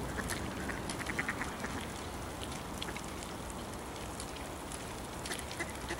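Ducks on the pond quacking: a quick run of short quacks about a second in, over a steady background hiss.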